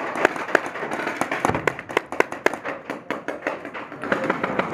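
Paintball markers firing in a busy exchange, with many sharp pops coming several a second at irregular intervals over a steady background hiss.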